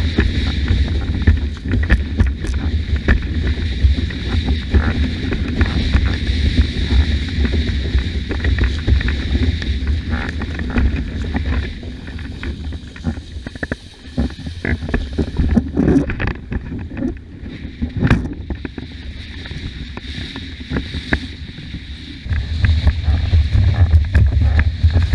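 Wind buffeting the microphone over the rush and splash of water under a windsurf board. The low buffeting eases about halfway through and picks up again near the end.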